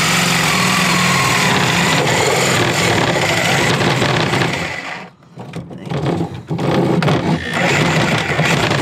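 DeWalt reciprocating saw cutting through a white shelf board. It runs steadily, stops briefly about five seconds in, then cuts again in short bursts.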